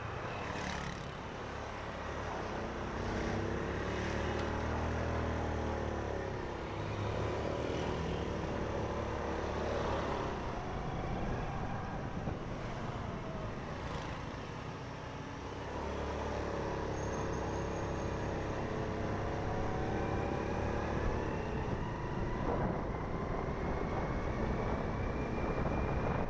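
Motorcycle engine running while being ridden, its pitch climbing and falling twice as the rider opens and eases the throttle, over a steady rumble of road and traffic noise.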